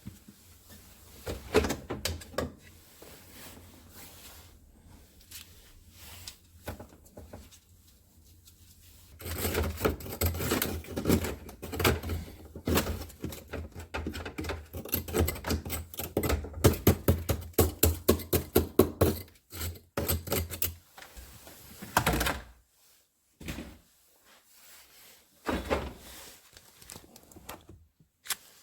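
Hands and tools working inside a refrigerator compartment: scattered clicks and plastic knocks, then a long run of rapid, rattling clicks over a low hum, ending with a few separate knocks.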